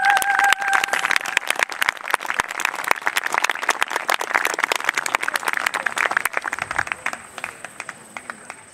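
Audience applauding, a dense patter of many hands that fades out over the last two seconds. A held note of the performance music stops about a second in.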